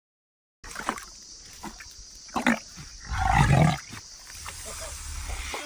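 A crocodilian's deep growl, lasting under a second, about three seconds in. Before it there are a few sharp clicks and a steady high hiss.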